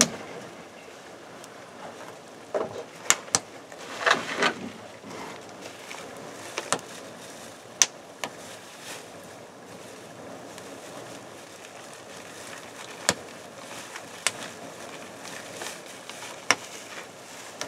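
Campfire of resinous pine kindling burning, with a steady low hiss and sharp crackling pops every second or few. There are a couple of louder rustling knocks about 2.5 and 4 seconds in.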